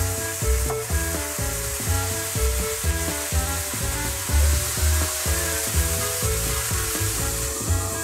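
Background music with a pulsing bass beat and held notes, over a steady sizzle of whole champignons frying in oil with white wine just added to the pan.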